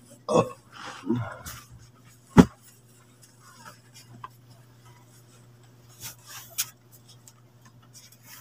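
Bundles of fabric doormats being handled and set down: rustling and rubbing of cloth, with a sharp knock about two and a half seconds in and more rustles near six seconds, over a steady low hum.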